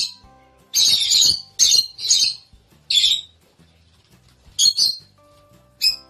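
Rosy-faced lovebirds giving short, loud, harsh shrieking calls, about seven in quick bunches, over faint background music.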